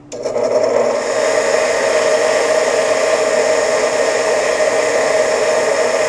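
Bench grinder with a wire wheel switched on: the motor spins up within the first half second, then runs steadily while copper battery-cable lugs are held against the wire wheel to brush off heat discolouration from soldering.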